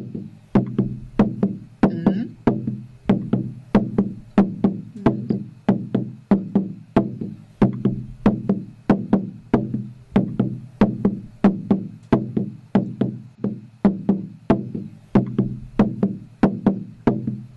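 A drum struck in a steady, even beat, about two strokes a second, each stroke with a short low ring.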